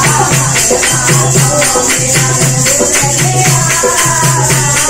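A group of women singing a langurya devotional folk song to a steady beat of jingling hand percussion and a drum, with hand clapping.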